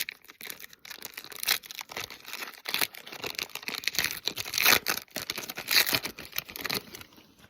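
Foil trading-card pack wrapper being torn open and crinkled by hand: a dense run of crackles, loudest a little past the middle.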